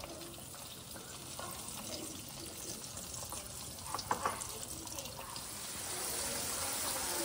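Breaded chicken fillets deep-frying in hot oil: a steady bubbling sizzle that grows louder about five or six seconds in as another fillet goes into the oil. A couple of sharp clicks about four seconds in.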